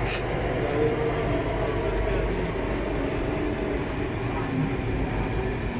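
Alstom Metropolis C830 metro train running through a tunnel, heard from inside the carriage: a steady, even rumble of the wheels and running gear.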